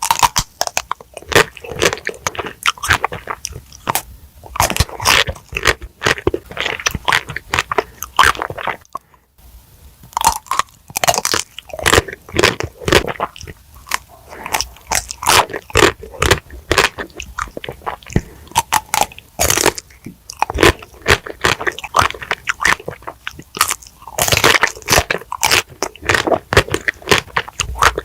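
Close-miked eating: repeated bites and crunchy chewing, a dense run of crackly crunches with a brief pause about nine seconds in.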